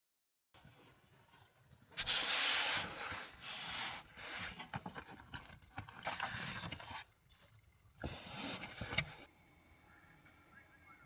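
Rubbing and scraping handling noise, in uneven bursts about two seconds in, that stops near the end.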